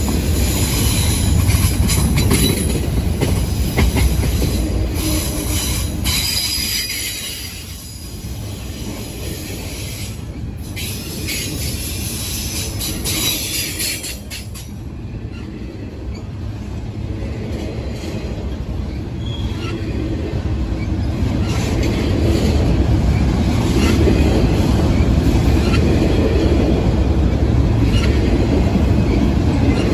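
Norfolk Southern freight train's enclosed autorack cars rolling past: a steady low rumble of steel wheels on the rails, with high-pitched wheel squeal over roughly the first half that fades out about halfway. The rumble grows louder again near the end.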